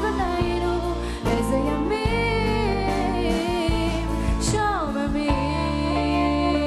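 Live band music: a lead melody line over steady bass notes, with drums, keyboards and electric guitar.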